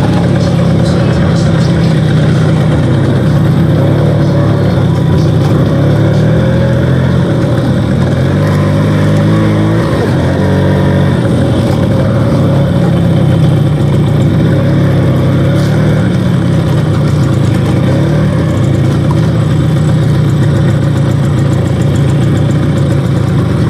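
Vespa scooter engine running while riding, over a steady rushing noise; the engine note shifts up and down in pitch about halfway through.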